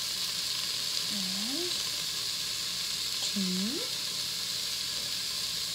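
Diced onion, carrot and celery sizzling steadily in olive oil in an electric multicooker's inner pot set to sauté. Two brief rising tones sound about a second in and again past the middle.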